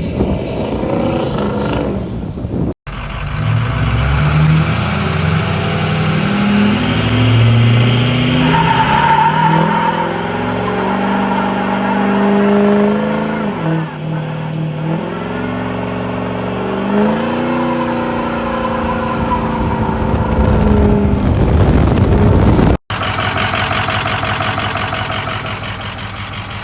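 6.0-litre V8 truck engine running, revving up and down through the middle, then idling steadily after a cut near the end. The engine has a misfire that the owner has been fighting for a long time.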